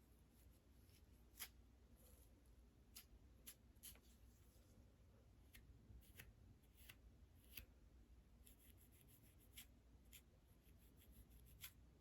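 Fingernails scratching through dandruff on a scalp: faint, irregular crisp scratches and ticks, with quick runs of them about nine seconds in and near the end.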